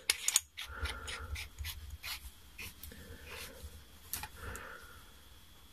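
Small metal and glass parts of a Wismec Reux rebuildable tank atomizer clicking and scraping as they are handled and screwed back together by hand. There is a burst of clicks at the start, then scattered light clicks, with soft breathing close by.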